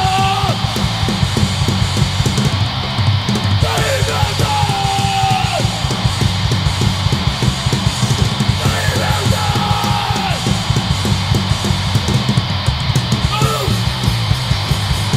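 Hardcore punk band playing live: a fast, driving drum beat of about five strokes a second under electric guitars, with shouted vocals coming in short bursts several times.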